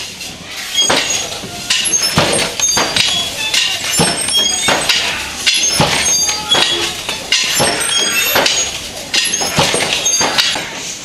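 Wooden handloom clacking in a steady rhythm of about two knocks a second as the weaver beats up the weft with the batten and passes the shuttle.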